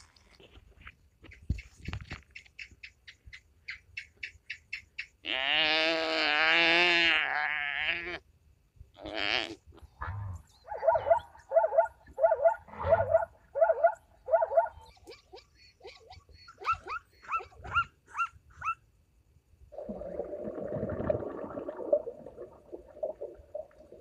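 A sequence of different animal calls: a quick run of chirps, then a long, loud, wavering bleat, then a series of calls repeated about twice a second, short chirps, and finally a rough growling call near the end.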